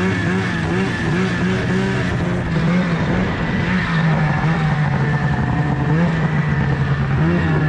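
Ski-Doo snowmobile engine running as the sled is ridden. The engine note wavers up and down over and over as the throttle is worked.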